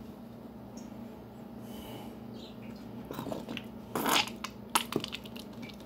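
Plastic squeeze bottle of ketchup handled over a metal baking tray: a short rustling hiss about four seconds in, then a few sharp clicks, over a faint steady hum.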